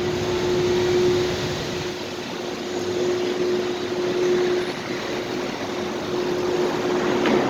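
Parking-lot ambience: a steady wash of noise with a constant mechanical hum at one pitch, and a short sharp squeak about seven seconds in.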